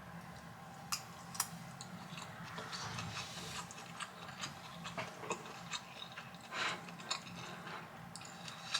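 Eating sounds: a spoon clicking and scraping against a bowl of fried rice, in a few sharp irregular clicks with a longer scrape about two-thirds of the way through, over a steady low hum.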